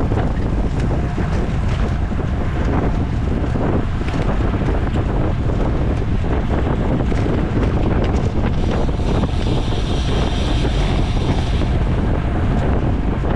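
Wind rushing over the microphone of a camera on a bicycle racing at speed: a steady, loud rumble. A higher whirring joins for a few seconds after the middle.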